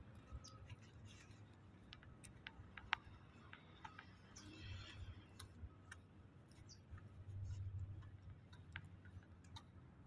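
Near silence with faint, scattered clicks and ticks, one sharper click about three seconds in, and a faint low rumble that swells briefly now and then.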